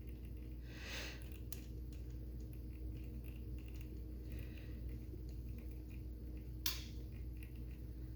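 Hand tools working the cam cover bolts on a Kawasaki KX250F engine: faint scraping and handling noises over a steady low hum, with one sharp click a little under seven seconds in.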